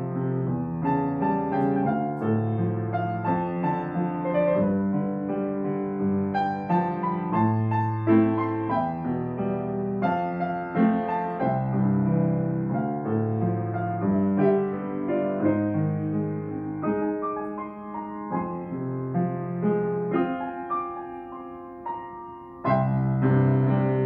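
Grand piano played solo: a flowing melody over low bass notes that change about every second. The playing grows softer for a few seconds, then a sudden louder chord comes in near the end.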